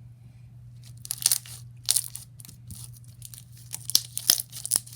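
Teal glitter slime being stretched and squeezed by hand, giving irregular bursts of crackly popping and a few sharp clicks near the end.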